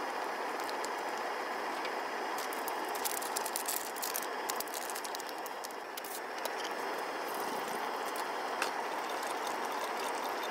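Steady hiss of a portable butane gas stove heating a steaming pot of broth, with scattered light clicks and rustles from handling the cookware and ingredients, mostly a few seconds in.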